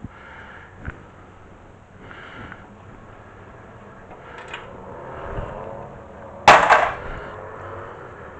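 Metal clank of the brake caliper being worked off the rotor and bracket: a couple of light clicks near the start, then one loud sharp metallic clank about six and a half seconds in.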